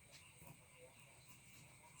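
Near silence: faint background hiss with a couple of very soft ticks.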